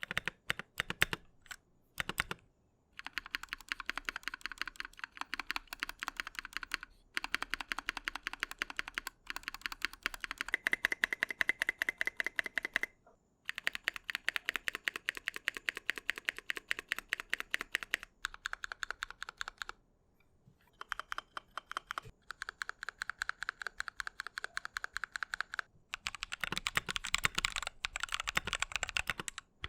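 Typing on a 60% mechanical keyboard fitted with lubed Holy Panda v2 tactile switches on an aluminium plate: rapid strings of keystrokes in runs of a few seconds, with short pauses between them.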